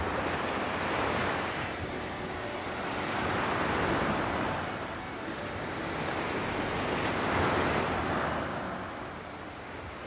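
Small sea waves breaking and washing up a sandy shore, the surf noise swelling and fading three times.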